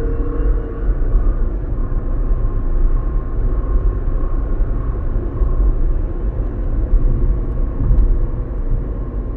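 Steady low rumble of a moving vehicle, with a faint steady whine.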